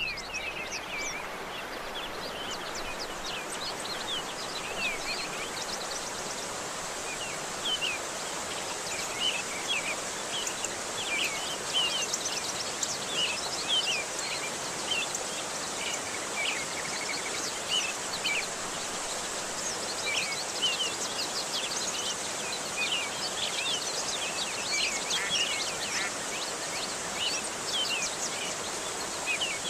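Outdoor nature ambience: many short bird chirps and quick whistles, scattered unevenly, over a steady background hiss.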